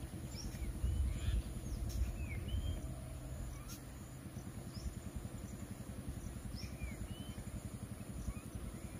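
Short whistled bird chirps, several at a time, scattered over a steady low rumble.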